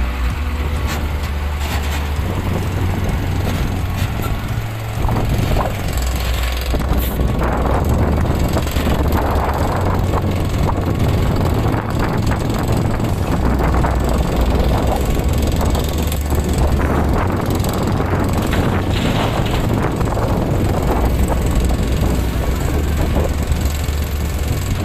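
Excavator's diesel engine running under load with a steady low rumble. A rough, crackling noise joins about five seconds in and carries on alongside it.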